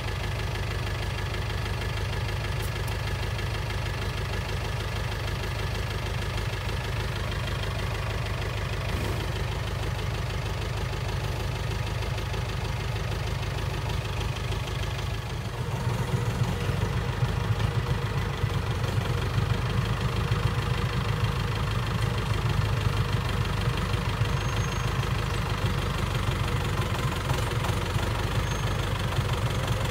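Farm tractor engine running steadily at idle. About halfway through it becomes louder.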